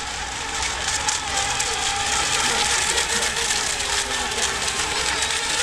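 Electric RC racing boats running at speed on the water: a steady, high motor whine over a hiss of spray, growing slowly louder as the boats come nearer.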